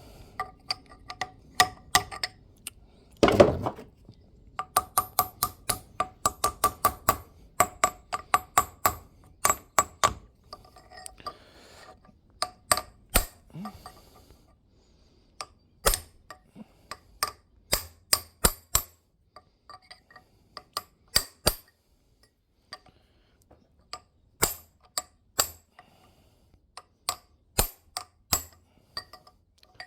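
Hammer tapping on metal with a ringing clink, a bearing being driven down into its seat: one heavier knock about three seconds in, then quick runs of about three or four blows a second, then single taps spaced out.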